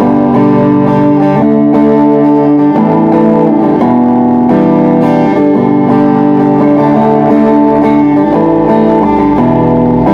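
APX-style cutaway acoustic-electric guitar played through its built-in preamp into a small 10-watt Cowboy V10G amplifier, a continuous passage of plucked chords and melody notes, the chords changing about every second.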